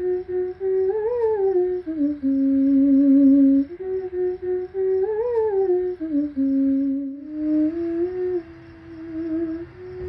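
Theremin playing a slow melody with vibrato, sliding smoothly from note to note. The same short phrase rises and falls twice, then after a brief break about seven seconds in it goes on lower.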